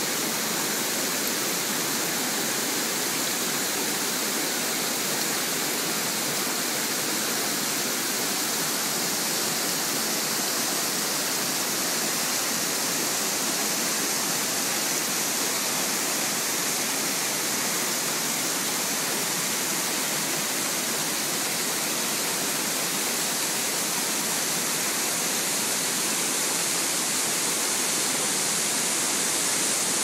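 Small waterfall and mountain stream rushing over boulders: a steady, even rush of water that does not change.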